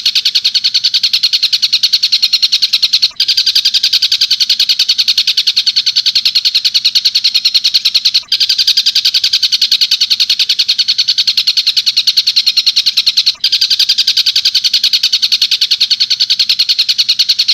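Recorded call of a tengkek buto bird played back as a training recording: a fast, continuous stream of high chattering notes, repeated in phrases of about five seconds with a brief break between them, three times.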